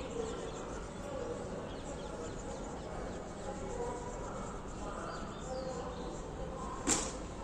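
Sparrows chirping faintly over steady background noise, with one sharp click near the end.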